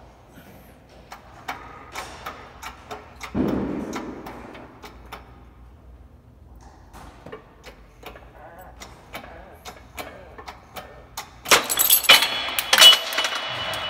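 Hydraulic shop press pressing a Honda Odyssey alternator rotor out of its bearing, held in a bearing separator: a run of light metallic clicks, with a dull thud about three and a half seconds in. Near the end, loud ringing metal clatter as the steel separator and rotor are handled and lifted off the press bed.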